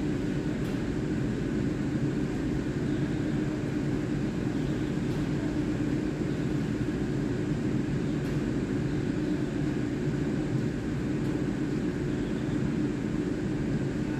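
Steady machine hum from a stationary EMU3000 electric multiple unit's onboard equipment and rooftop air-conditioning units, with a low drone and a few constant tones and no change in pitch.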